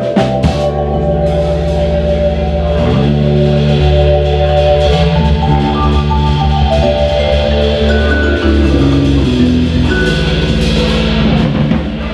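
Vibraphone, electric bass guitar and drum kit playing together live: vibraphone notes ringing and held over a bass line, with drums and cymbals underneath.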